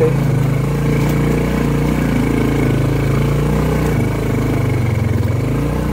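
Bajaj CT 100 motorcycle's small single-cylinder four-stroke engine running steadily under way on a rough dirt track.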